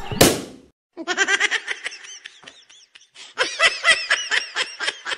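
A loud bang as a large rubber balloon is burst beside a truck's tyre to imitate a tyre blowout, followed from about a second in by a long run of rapid, rhythmic laughter.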